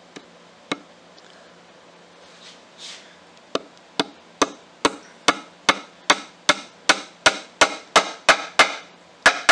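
Small hammer tapping the brass pins of a keyhole escutcheon into an oak desk lid: two light taps at the start, then, a few seconds in, a steady run of about a dozen sharp taps at roughly two and a half a second.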